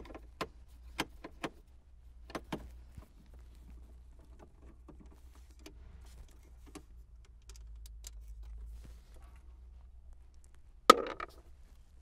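Small clicks and taps of a Phillips screwdriver and loose screws being handled while the mounting screws of a car radio are backed out of the dashboard. Several clicks come close together in the first few seconds, then a few scattered ticks. A single loud, sharp knock comes near the end.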